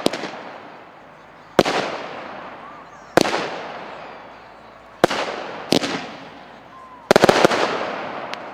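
Xplode Dangerous 25-shot fireworks battery firing its shells, each bursting with a heavy bang that echoes away: a bang about every one and a half to two seconds, then a quick run of several bangs near the end.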